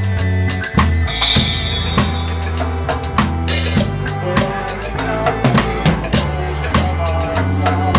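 Live reggae band: a drum kit with kick and snare hits over a sustained bass line and keyboard. A cymbal rings out about a second in and again a couple of seconds later.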